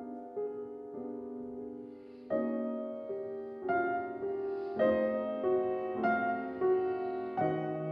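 Grand piano playing a slow, soft classical passage, the chords changing every second or so and growing louder about two seconds in.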